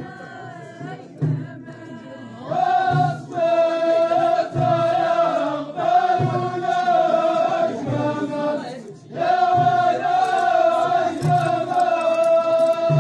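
Ahidous, the Amazigh line dance-song: a men's chorus chanting in long, held, wavering notes, over a low beat that comes about once a second. The chorus comes in about two and a half seconds in and breaks off briefly near the ninth second.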